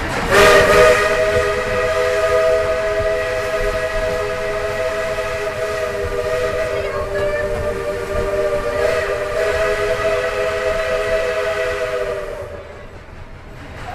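Whistle of a narrow-gauge steam locomotive sounding one long, loud blast of several notes together, over a hiss of steam. It cuts off near the end.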